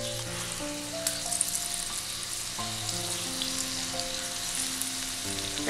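Gram-flour-battered banana flower strands deep-frying in hot sunflower oil, the oil sizzling steadily. Soft background music plays slow held notes underneath.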